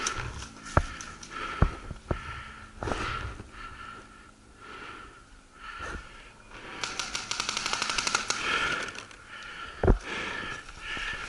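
Paintball markers firing: a few sharp single shots in the first couple of seconds, then a rapid string of shots lasting about two seconds past the middle, and one more loud shot near the end.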